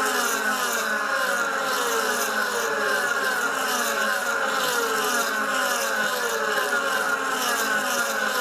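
DTM race cars' 4.0-litre V8 engines running at race speed past the grandstand, one after another, with engine notes falling in pitch again and again as the cars go by.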